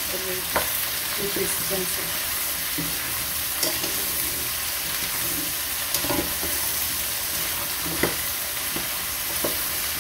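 Chopped vegetables sautéing in hot oil in a nonstick pot, a steady sizzling hiss, as a wooden spatula stirs them with a few light knocks against the pan.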